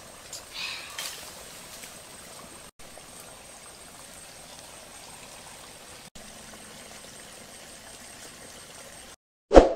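Steady rushing hiss with a faint high whine, briefly dropping out twice. It cuts to silence near the end, followed by one short, loud hit.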